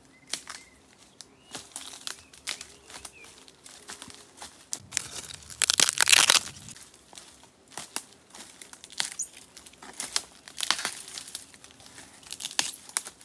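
Wild bamboo shoots being snapped off and pulled up through dry bamboo leaf litter: irregular crackling and rustling of dry leaves with sharp snaps. The loudest is a long tearing crackle about five to seven seconds in.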